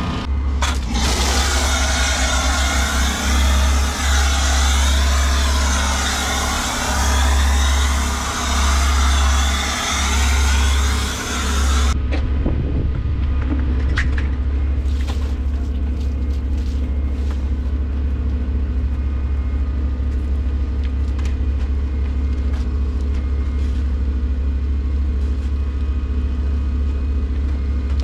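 Pressure washer spraying through a foam cannon, a loud, even hiss that stops abruptly about twelve seconds in. Under it and after it the pressure washer's motor keeps up a steady low hum, with a few light knocks.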